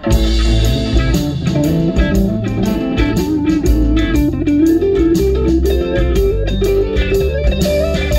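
Band music: an electric guitar plays a stepping melody over bass guitar and a steady beat. The music comes in abruptly and loud right at the start.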